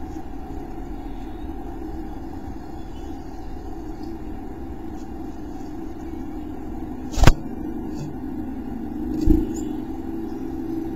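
A steady low rumble, with a sharp knock on the wooden nest box about seven seconds in and a softer thump two seconds later as a Carolina chickadee moves about and leaves the box.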